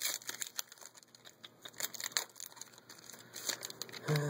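Foil trading-card pack wrapper being torn open and crinkled by hand, with irregular crackles. A brief voice sound comes near the end.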